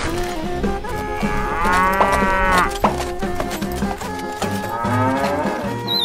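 Cow mooing, a sound effect laid over toy cow figurines: one long moo about a second and a half in and a second near the end, each rising then falling in pitch, over steady background music.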